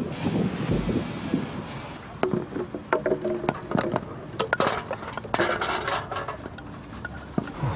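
Litter being stuffed by hand into a plastic shopping bag: the bag rustles while cans, bottles and cups knock and clink against each other in many short, irregular clinks.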